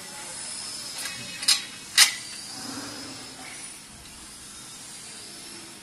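Two sharp knocks about half a second apart, about a second and a half in, as hands work the black steel frame of a roller heat press machine, over a steady hiss.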